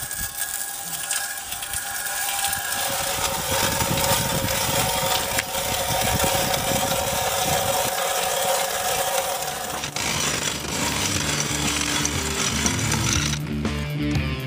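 Hand ice auger boring through thick river ice: a steady grinding scrape of the blades cutting as it is cranked round. Music comes in near the end.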